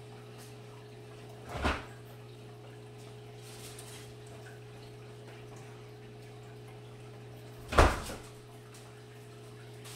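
A soft knock about a second and a half in, then a refrigerator door shutting with a thud near the end, over a steady low hum.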